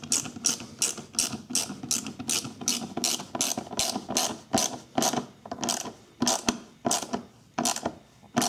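Hand ratchet with a 1/4-inch socket clicking steadily, about three clicks a second, as it tightens a worm-drive hose clamp on an air intake hose.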